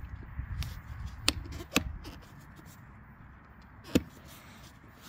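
Plastic push-in clips being pressed by hand into the mounting holes of a plastic engine acoustic cover: three sharp clicks, the loudest about four seconds in.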